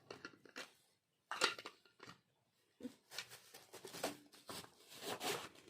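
Gift packaging being opened by hand: irregular bursts of rustling, crinkling and tearing of wrapping paper and tape.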